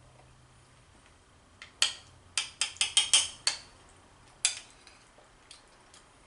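Metal spoon clinking against a plate while scooping up curry: a quick run of sharp clinks in the middle, then one more about a second later.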